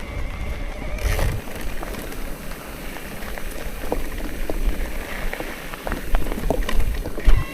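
Wind rumbling on the microphone, with scattered small crackles and clicks and a louder low thump near the end.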